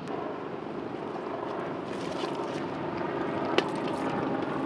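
Distant engine drone, steady and slowly growing louder, with a single sharp click about three and a half seconds in.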